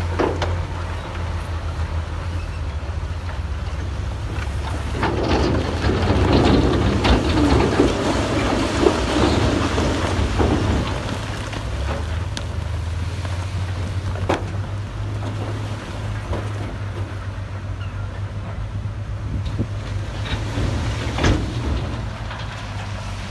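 Heavy diesel earthmoving machine's engine running steadily with a low drone, with a louder spell of rough scraping and clattering in the middle and a few sharp knocks near the end.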